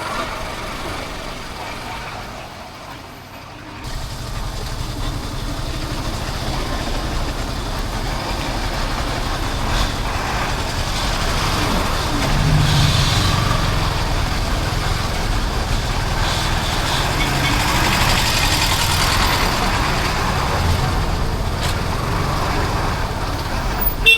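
Road-vehicle noise: a steady engine-and-rushing-air sound that gets suddenly louder about four seconds in and keeps going, with a short sharp knock near the end.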